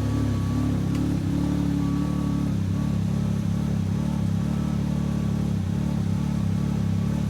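Can-Am Maverick X3 Max's turbocharged three-cylinder engine idling steadily.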